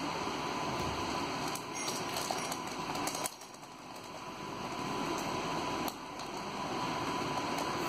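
Plastic snack packet crinkling in a small child's hands: scattered crackles, thickest in the first half, over a steady hiss.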